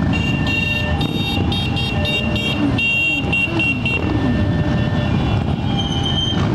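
A procession of cruiser motorcycles rides past, engines rumbling and revving. Horns sound a run of short, quick beeps from about half a second to four seconds in, and one more near the end.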